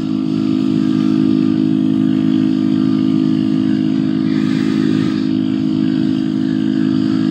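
Honda Grom's 125 cc single-cylinder four-stroke engine running at a steady speed while being ridden, its pitch held even throughout.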